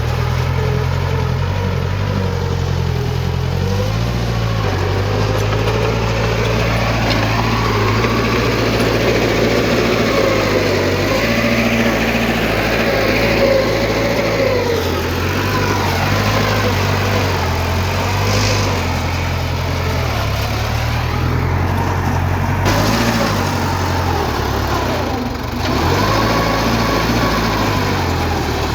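Heavy diesel earthmoving machine running under load, its engine note rising and falling as it works, with a brief drop in level near the end.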